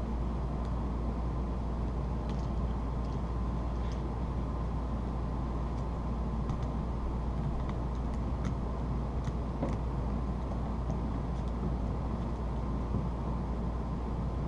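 Steady low hum of background noise, with faint scattered clicks of a screwdriver and fingers working the terminal screws and plastic body of a 220 V plug.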